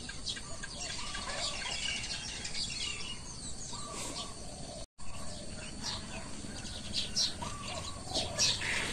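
Birds chirping and calling outdoors: scattered short high chirps mixed with lower, brief calls. The sound drops out completely for an instant about halfway through.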